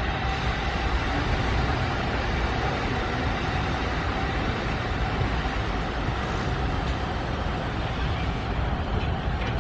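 JNR Class C61 steam locomotive C61 2 moving slowly while hauling passenger coaches, giving a steady rumble and hiss.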